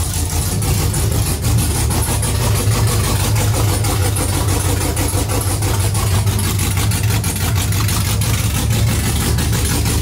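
Freshly rebuilt 5.3L Vortec LS V8 with a Texas Speed Stage 3 truck cam, idling steadily.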